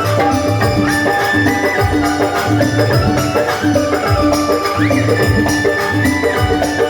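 Rajasthani folk devotional music, played without singing: a stepping, sliding melody line over a steady drum beat of about two strokes a second, with jingling tambourine-like percussion.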